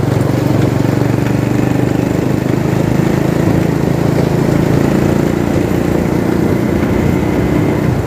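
Honda motorcycle engine running steadily at an even cruising speed while riding along the road.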